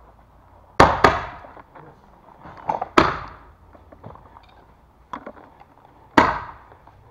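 Paintball markers firing: four sharp pops, two in quick succession about a second in, one near three seconds and one a little past six, each echoing in the bare concrete room, with a few fainter knocks between them.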